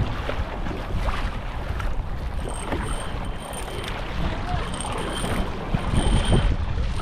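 Wind buffeting the microphone over choppy sea water splashing and lapping close by, as from a kayak being paddled.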